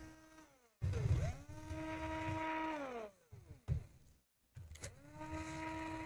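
Cordless drill-driver backing out laptop screws. Its motor winds up, runs steadily for about two seconds and winds down, twice, with a short click between the two runs.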